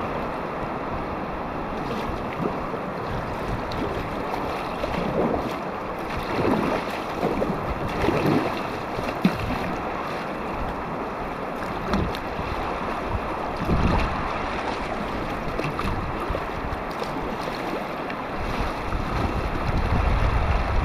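Steady rush of river whitewater around a kayak, with a few louder splashes in the middle and wind buffeting the microphone near the end.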